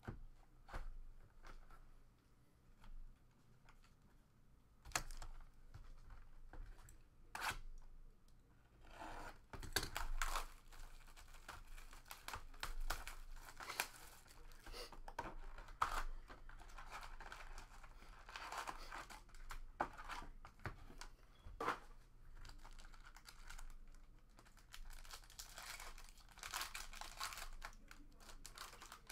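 Clear plastic shrink wrap torn off a box of trading cards and foil card packs being torn open and crinkled. A few sharp taps come first, then from about a third of the way in steady crinkling and tearing.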